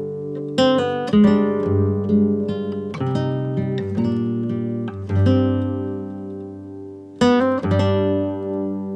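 Background music: acoustic guitar strumming chords, each one struck and left to ring out.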